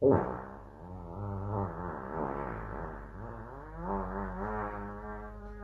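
A long, drawn-out fart noise used as a prank: a low buzzing tone that starts suddenly and wavers slowly up and down in pitch.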